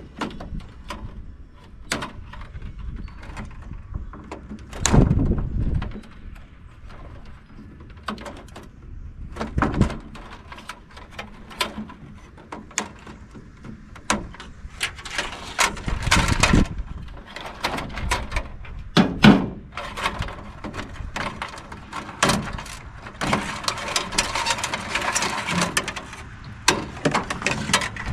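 Irregular clanks, knocks and scraping of metal being handled, with a dozen or so sharp knocks and a few louder bangs. Longer rattling, scraping stretches come about halfway through and again near the end.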